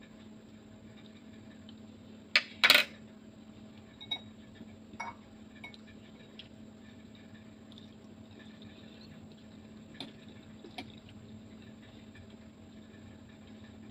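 Metal cutlery clinking against ceramic dishes: two sharp clinks about two and a half seconds in, then a few lighter taps and scrapes of a fork in a ceramic bowl, over a faint steady hum.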